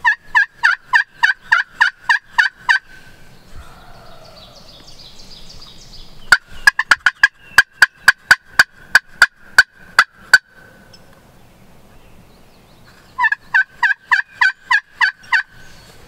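Turkey call worked with a wooden striker, imitating a hen: a run of about ten loud two-note yelps, then a faster, sharper run of clucks and cutts about six seconds in, then another run of about ten yelps near the end.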